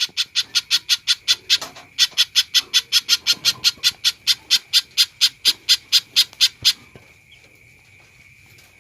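Spiderhunter (pijantung) calling: fast runs of sharp, evenly repeated notes, about six or seven a second, with a short break near two seconds in, stopping about two seconds before the end. A faint steady high tone sits underneath.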